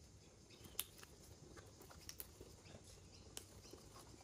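Crisp snaps of water spinach stems being broken off by hand: a few sharp, separate clicks, the clearest about a second in, two together just after two seconds and another past three seconds, over near silence.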